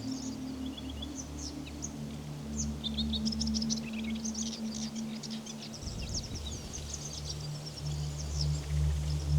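Many small birds chirping and calling. Under them a low steady drone of background music, which shifts to a lower note about six seconds in.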